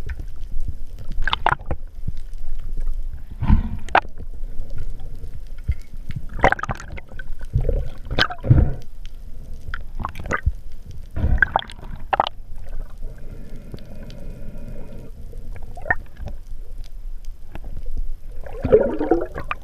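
Underwater handling sounds from a freediver working a speared hogfish on the spear shaft: irregular muffled knocks and scrapes over a low water rumble, with a gurgle near the end.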